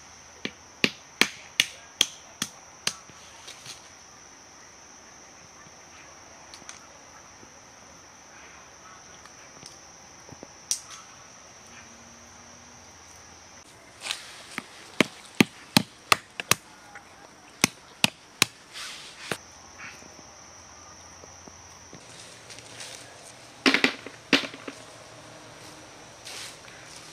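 Walnuts being cracked open on a tree stump: runs of sharp knocks, about two or three a second, in three bursts near the start, in the middle and two loud blows near the end. A steady high insect trill runs behind them and stops a little before the end.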